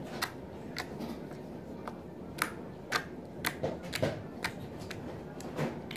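Clicky slime being poked and pressed with the fingertips, giving sharp irregular clicks and pops, about two a second.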